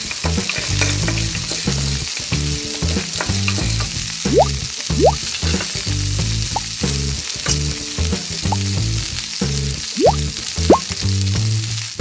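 Frying sizzle sound effect laid over a background music track with a rhythmic low bass line, with quick upward-gliding whistle effects twice about four to five seconds in and twice about ten seconds in.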